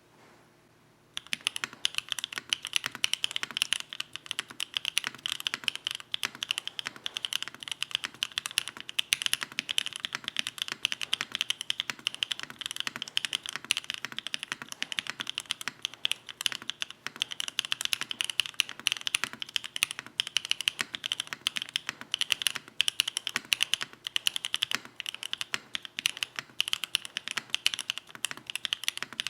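Fast typing on a Bauer Lite mechanical keyboard with Gateron Smoothie linear switches, a polycarbonate plate, no foam and GMK keycaps: a continuous stream of rapid keystrokes starting about a second in.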